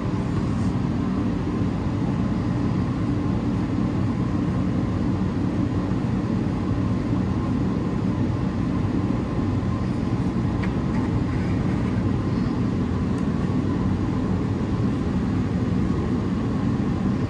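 Steady low mechanical roar running throughout, with a few faint clicks or taps about ten seconds in.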